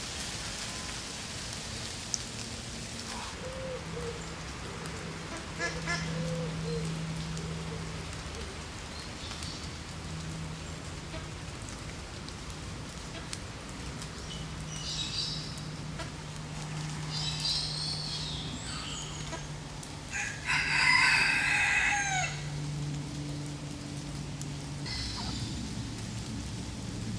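Steady rain falling on the ground and leaves, with a rooster crowing loudly once about three-quarters of the way through, after a couple of fainter calls; a low steady hum runs underneath most of it.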